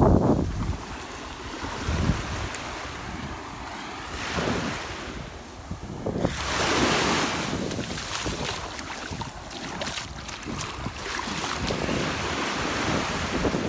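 Small waves washing up the beach in surges of hiss, with wind rumbling on the microphone. The loudest surge comes about six seconds in.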